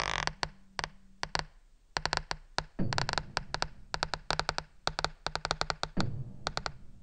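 Sharp clicks and taps in an irregular, stuttering rhythm, each over a low hum. At times several come a second, and at times there are gaps of about a second between them, from a live experimental music set.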